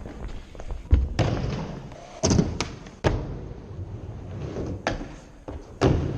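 Skateboard wheels rolling with a run of sharp clacks and thuds from the board striking and landing on the ramps. The loudest knock comes about a second in, and several more follow over the next five seconds.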